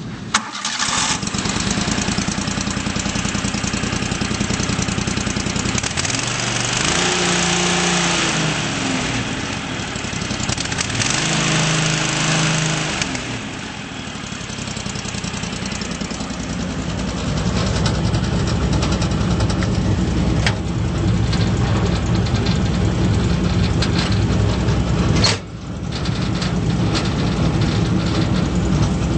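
Kohler Command Pro engine of a Vermeer BC600XL tow-behind brush chipper running. Its pitch shifts up and down twice in the first half, and otherwise it runs steadily.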